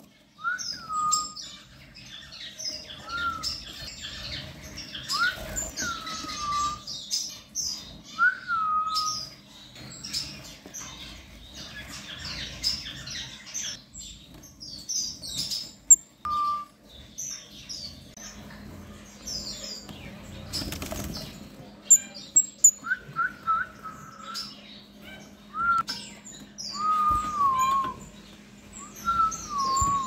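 A flock of red-faced parrot finches, sea green and normal-coloured, twittering with many thin, high chirps. Short whistled notes that slide downward come again and again through it.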